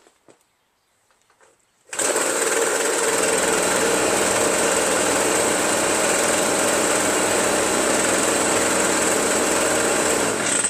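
Ryobi 25.4cc backpack leaf blower's two-stroke engine running at a steady speed. It comes in abruptly about two seconds in and stops abruptly near the end.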